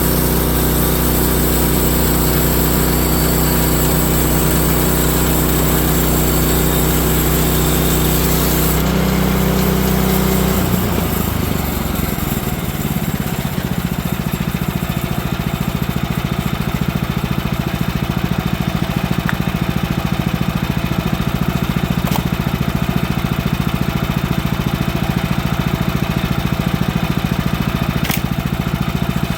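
Woodland Mills HM130Max bandsaw sawmill running at full throttle with a high hiss of the blade, which stops about nine seconds in; the engine then throttles down and settles into a steady idle.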